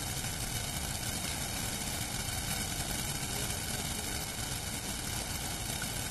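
Steady rushing noise with a flickering low rumble: wind and flowing water at the edge of the swollen, flooding river.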